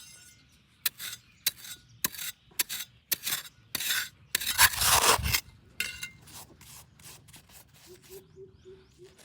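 A series of irregular scraping and rubbing strokes, about a dozen, with the longest and loudest stroke about five seconds in. Near the end comes a faint pulsing tone of a few short repeats.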